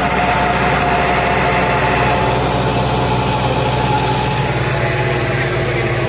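Tractor diesel engines running steadily, an even drone with no break.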